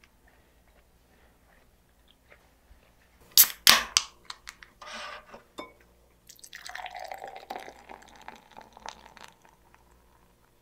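A few sharp clicks about three and a half seconds in as the beer can is handled and opened, then beer poured from a 500 ml Asahi can into a tall glass, splashing and foaming for about three seconds.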